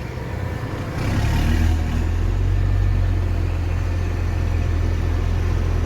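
Straight-piped truck engine running with a deep, steady drone that grows louder about a second in, then holds.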